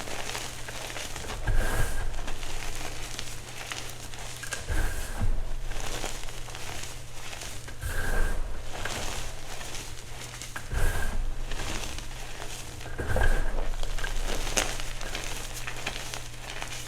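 Purple reformed gym chalk being crushed: crisp crunching and crumbling, with a firmer crunch every few seconds as another piece gives way.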